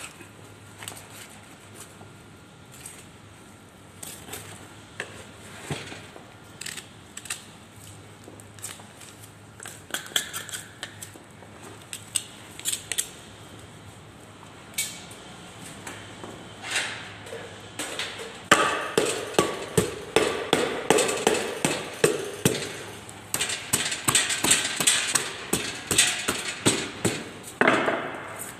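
Butcher's knife cutting and scraping through a beef shoulder on a plastic cutting table, with scattered clicks and knocks as the meat is handled. About two-thirds of the way in it turns into a fast run of louder scraping strokes that lasts nearly to the end.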